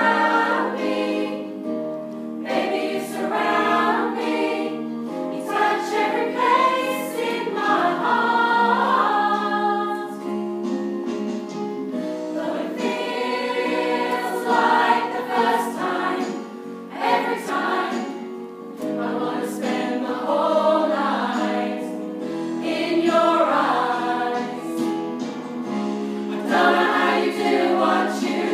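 A glee club choir singing a ballad in harmony, in long held phrases with brief breaths between them.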